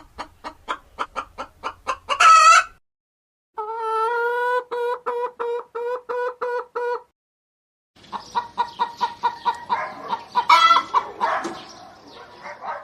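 Chickens clucking in three short separate takes: a quick run of short clucks ending in a louder squawk, then after a brief silence a run of about a dozen evenly pitched calls, then after another silence several birds clucking over one another.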